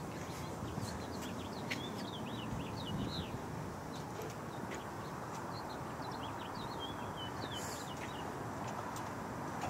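A small bird chirping in quick runs of short, sliding high notes, over a steady background hiss.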